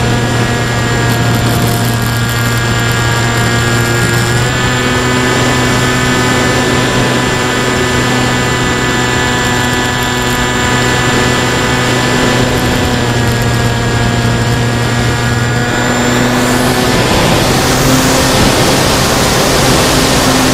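The electric pusher motor and propeller of an FX-79 Buffalo flying-wing RC plane, heard from its onboard camera: a steady buzzing whine whose pitch steps up slightly about four seconds in. Near the end the motor tone weakens and wind rush grows as the plane noses down.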